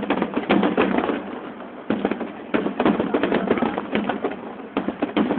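Aerial firework shells bursting in rapid succession: dense clusters of bangs and crackling every half second to a second during the finale barrage of a fireworks display.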